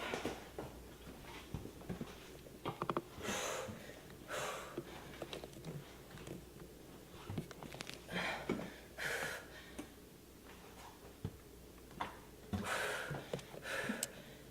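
A person breathing hard during exercise: pairs of loud, noisy breaths about a second apart, coming every four to five seconds, with a few small knocks and clicks between them.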